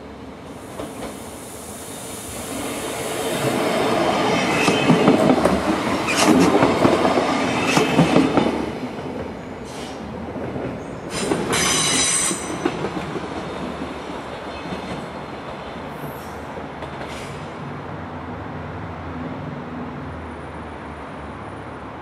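Stadler GTW electric railcar running past close by over station trackwork. The wheels rumble and knock, loudest about four to eight seconds in, and a high-pitched wheel squeal comes and goes near the start and again around halfway. The sound then settles to a low steady rumble as the train draws away.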